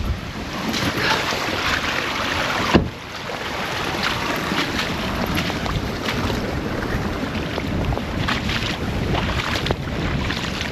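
Steady rushing of wind buffeting the microphone, with a sharp knock about three seconds in.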